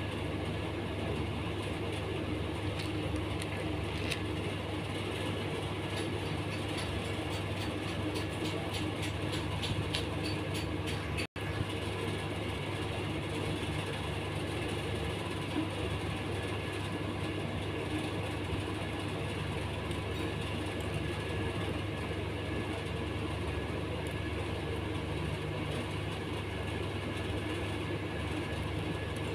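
Steady low hum and rumble of background noise, breaking off for an instant about eleven seconds in.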